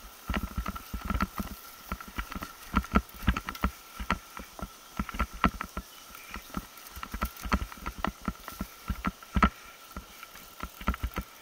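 A mountain bike rattling and knocking as it descends rough, root-strewn singletrack: a dense run of irregular clacks and thuds from the frame, chain and mount over bumps, with a faint steady high tone underneath.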